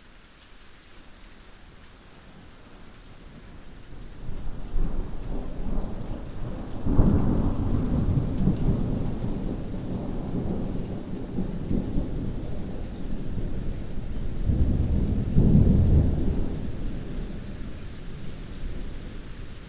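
Rolling thunder over heavy rain. A deep rumble builds a few seconds in, swells to one peak about a third of the way through and another around three quarters, then slowly dies away under the steady rain.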